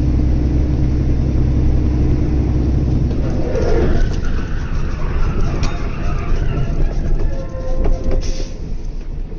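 Heavy truck engine and road noise heard inside the cab while driving at highway speed: a steady low engine hum for about three seconds, then a rougher rumble of tyres and wind with a few sharp clicks.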